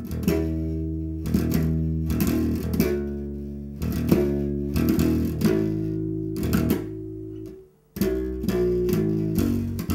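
Electric bass guitar plucked with the fingers, playing a run of sustained low notes. The playing breaks off briefly about three-quarters of the way through, then starts again.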